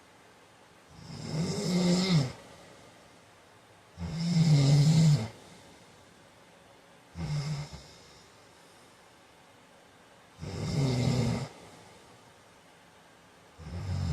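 A man snoring in his sleep, with five snores about three seconds apart and quiet gaps between them. The one in the middle is shorter and quieter than the rest.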